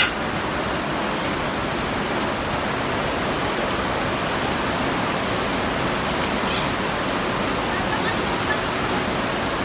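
Heavy rain pouring steadily: a dense, even hiss with scattered faint ticks of drops striking hard surfaces.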